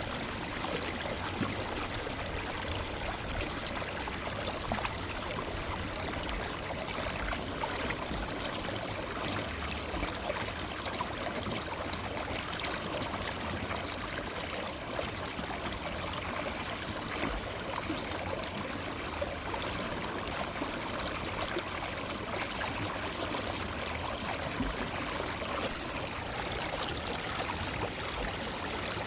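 Forest river flowing over stones: a steady, even rush of running water with fine gurgling and splashing texture.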